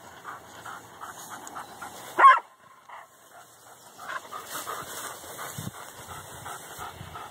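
Dog barking at cows across a fence: one loud single bark about two seconds in, with fainter repeated whimpering around it.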